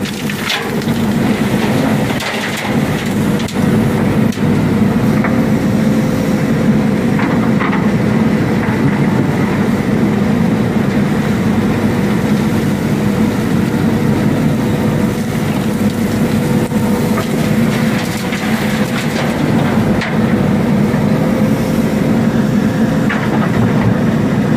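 JCB backhoe loader's diesel engine running steadily under hydraulic load as the backhoe arm works, heard from inside the operator's cab. A few short knocks sound over it.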